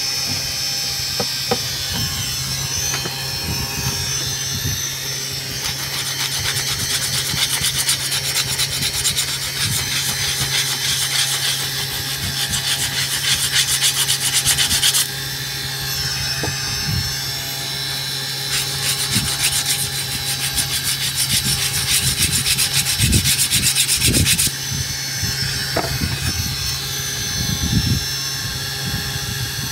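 Homemade CNC router's spindle motor running steadily, its bit cutting into fibreboard with a rapid rasping. The cutting grows loud from about six seconds in and stops suddenly at about fifteen seconds, then runs again from about eighteen to twenty-four seconds.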